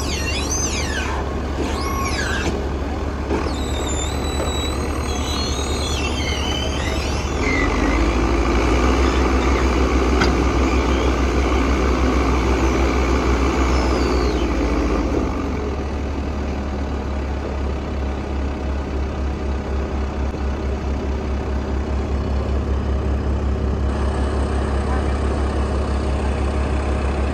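Diesel engines of a JCB Loadall telehandler and a tractor running steadily. From about 8 to 15 seconds in, the note drops and grows louder as the machines work under load to pull the stuck trailer free, then settles back.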